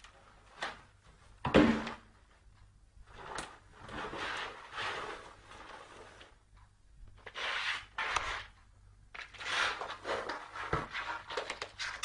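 Irregular knocking and scraping, like something bumping and rubbing against wooden furniture, with one sharp knock about a second and a half in and a flurry of clicks near the end.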